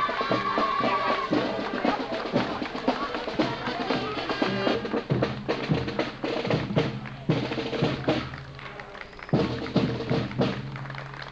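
A parade marching band playing a tune, with snare and bass drums beating under the melody.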